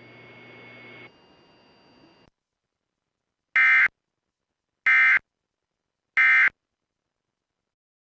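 Three short, loud buzzy bursts of Emergency Alert System AFSK data, evenly spaced a little over a second apart: the triple end-of-message code that closes an alert. Before them a faint radio hiss fades out.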